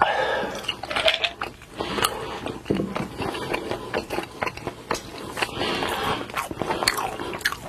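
Close-miked eating sounds: a person biting and chewing food, with many small wet mouth clicks.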